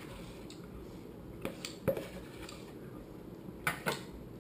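Ice cream cartons and a bowl being handled: a few light knocks and clinks of kitchenware, the sharpest about two seconds in and a pair near the end.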